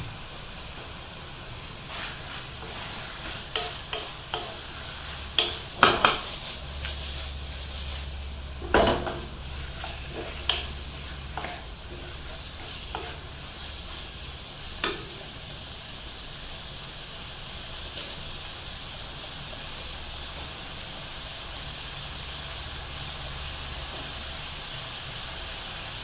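Beef, tofu and kimchi sizzling steadily in a nonstick wok. Through the first half a wooden spatula stirs the food with a series of sharp knocks and scrapes against the pan, then only the sizzling goes on.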